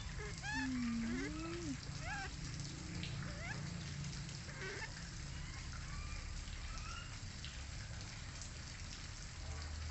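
Short, high chirping calls rising in pitch, scattered through the first seven seconds or so, over a steady low hum and hiss. A louder low wavering tone, dipping then rising, comes about half a second to two seconds in.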